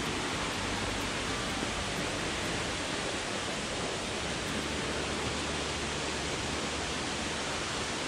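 Tad Yuang waterfall's falling water making a steady, even rush.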